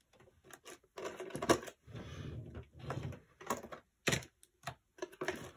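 A plastic diamond-painting drill tray being fetched and set down: a run of light plastic clicks, knocks and rustles, with a sharper click about four seconds in.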